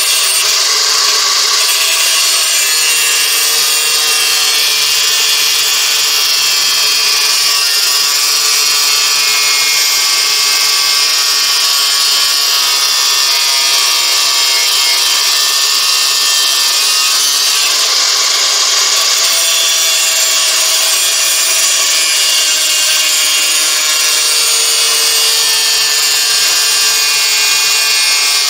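Angle grinder running under load, its disc cutting through a high-carbon steel file clamped in a vise, with a loud, steady, high whine.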